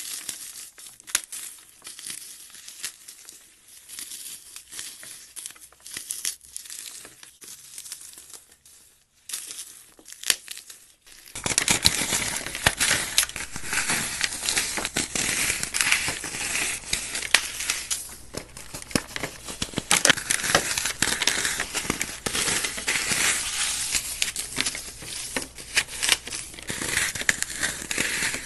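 Paste-coated dry floral foam crushed and crumbled by hand: a crisp, gritty crunching and crackling. About eleven seconds in it turns suddenly louder and denser as another block is squeezed.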